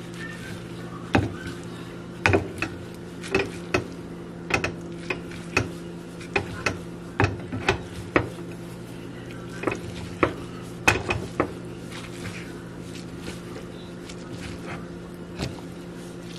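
A utensil knocking and scraping against a plate while pulling apart cooked chicken: irregular sharp taps and clicks, thinning out after about twelve seconds, over a steady low hum.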